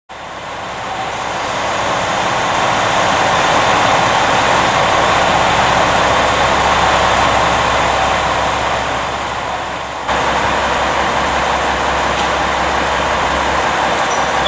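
Trains standing at a station platform with their equipment running: a steady mechanical drone that builds over the first few seconds. About ten seconds in it cuts to a KiHa 47 diesel railcar idling.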